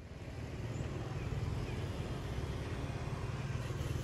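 Steady low rumble, with a few faint short high chirps.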